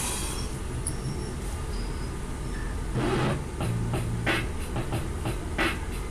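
A rap beat starts about three seconds in, played back over a steady low hum: sharp hi-hat and snare hits at about three a second over low bass notes.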